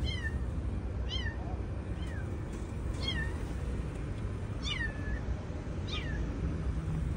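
Kitten trapped in the front end of a car, meowing over and over: about six high cries, each sharply falling in pitch, the fourth one longer and trailing off.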